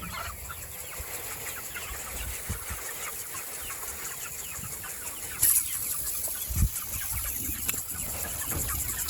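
Chickens clucking in their pen while water is sprayed over them. About five and a half seconds in, a steady hiss of water spray comes on and keeps going.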